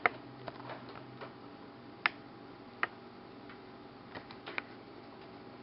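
Scattered light clicks and taps, about six of them, as a small flat-head screwdriver and fingers pry at the plastic display bezel of an Asus X501A laptop to lift off a screw cover, over a faint steady hum.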